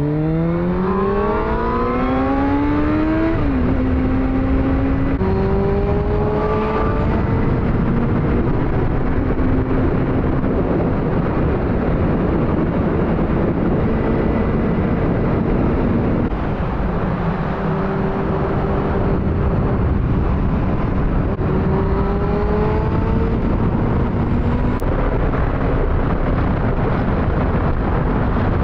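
Motorcycle engine accelerating hard, its pitch climbing through the gears in the first several seconds and then holding steady at cruising speed. It climbs briefly again a few seconds before the end, over a steady rush of wind and road noise.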